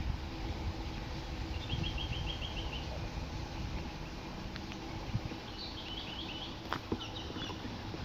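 Wind buffeting the microphone with a steady low rumble, while a bird calls in two quick runs of repeated high notes, about two seconds in and again around six seconds. A few sharp clicks come in the second half.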